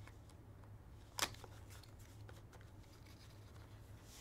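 Hands opening a small black cardboard trading-card box and sliding out a card in a clear plastic holder: one sharp click about a second in, then faint taps and rustles.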